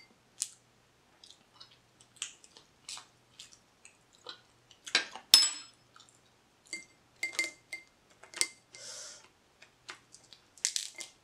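Scattered small cracks, wet clicks and squishes of a cooked blue crab's shell and legs being pulled apart by hand, with one sharp clink of a metal spoon about five seconds in.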